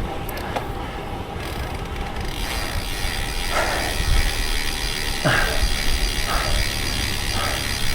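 Road bike's rear freehub ratchet clicking steadily as the rider coasts, starting about two seconds in.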